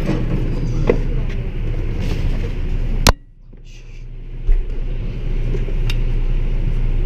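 Steady low rumble of a car in motion. About three seconds in there is a sharp click, after which the noise drops away sharply and builds back up over about two seconds.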